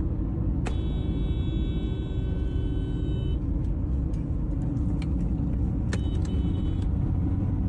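Steady low road and engine rumble heard inside a moving car's cabin. About a second in, a held tone sounds for roughly two and a half seconds, and a couple of brief high tones come near the end.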